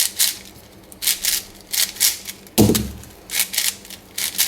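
Plastic 5x5x5 gear cube being twisted by hand: a run of quick clicks and clacks as the layers and gears turn, with one heavier knock about two and a half seconds in.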